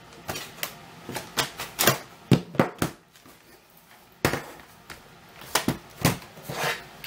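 Clicks and knocks of a laptop's plastic case and battery being handled as the battery is taken out: a run of separate sharp clicks, the loudest around the middle.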